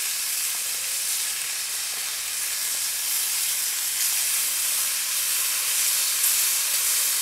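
Rashers of smoked back bacon sizzling in a frying pan over a campfire: a steady, even frying hiss.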